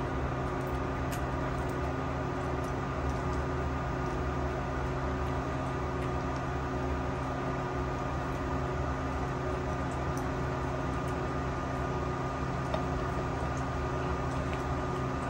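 Steady machine hum, several steady tones held over a low drone without change.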